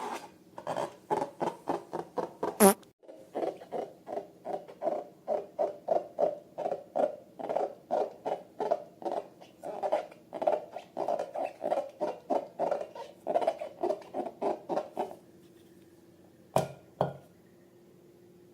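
Slime being squished and worked by hand in a steady rhythm, about three squelches a second, stopping about 15 seconds in. One sharp squeak sounds about three seconds in, and two short clicks come near the end.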